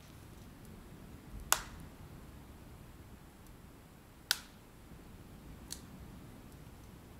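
Three sharp, isolated cracks over a low steady background: a loud one about a second and a half in, another about four seconds in, and a fainter one near six seconds.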